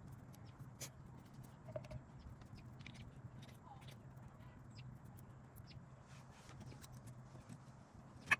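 Scattered light clicks and taps over a faint steady hum, with one sharper click near the end: brake pads being handled and seated in the caliper bracket.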